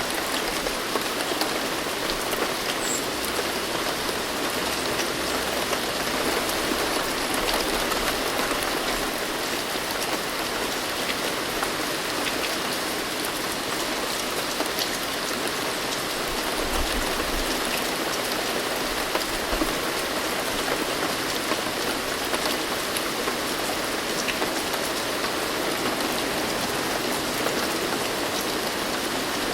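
Steady rain falling: an even hiss sprinkled with the ticks of many individual drops.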